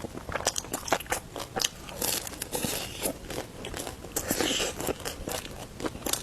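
Close-up biting and chewing of roujiamo, Chinese flatbread stuffed with meat, with the crust crunching in many sharp, irregular crackles and louder clusters of bites about two and four seconds in.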